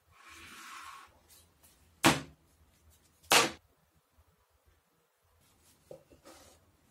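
Plastic spring clamps being taken off a glued workpiece and set down on a wooden tabletop: a short scraping rustle, then two sharp clacks about a second apart, with faint handling sounds near the end.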